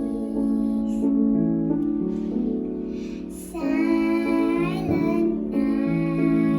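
Music: a young female voice singing long, slow held notes of a carol over keyboard accompaniment.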